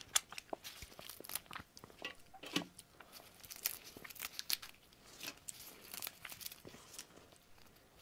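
Clear plastic gloves crinkling while the hands peel the shell off a large red shrimp, giving scattered soft crackles and clicks of shell cracking and pulling away.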